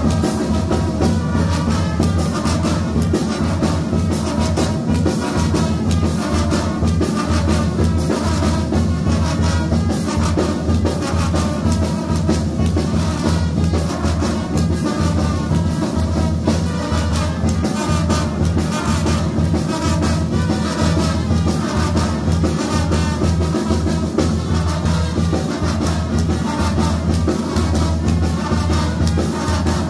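Brass band music with drums, playing a steady, even beat without a break.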